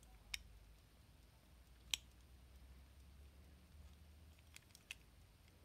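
A few faint, sharp metallic clicks as an antique pocket watch's hinged case is handled and opened, the loudest about two seconds in, over a low steady hum.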